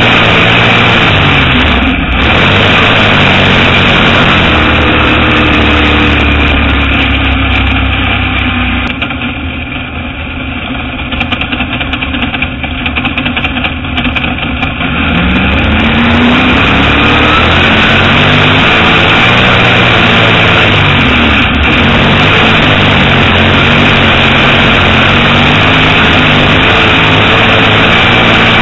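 Dirt modified race car's V8 engine, heard loud from inside the cockpit, its pitch rising and falling with the throttle lap after lap. About a third of the way in it drops away for several seconds, then climbs back up.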